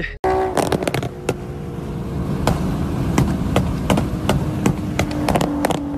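Nissan 370Z's 3.7-litre V6 through a loud single-exit Tomei exhaust, accelerating hard as heard from a following car. It is a rough, raspy drone that builds over the first few seconds, with many sharp crackles and pops along the way.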